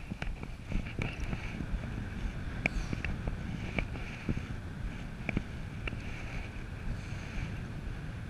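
Air rushing past in paraglider flight, buffeting the microphone with a steady low rumble, with scattered short ticks.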